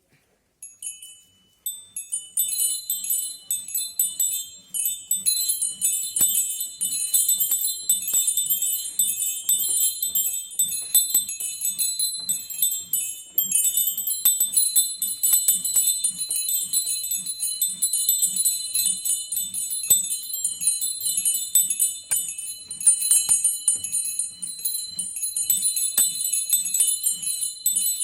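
Small bells of a miniature home bell tower chimed in a fast, continuous scampanio peal, high-pitched strikes overlapping. It starts just under a second in.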